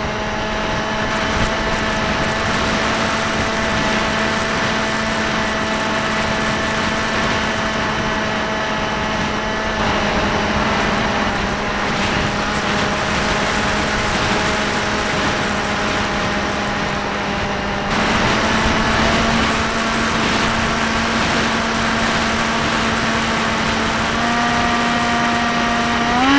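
Motor and propeller of a radio-controlled model plane heard from its onboard camera: a steady droning tone that holds its pitch, shifting slightly a few times with small throttle changes and rising sharply right at the end as the throttle is opened.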